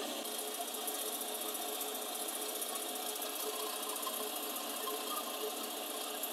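Milling machine running steadily with a boring bar feeding down through a welded steel swing arm's needle bearing bore. It is taking a light cut of about two thousandths per side to true a bore that welding distorted out of round.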